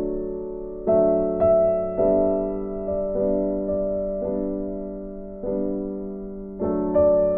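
Background music: a slow piano tune, each note struck and left to fade.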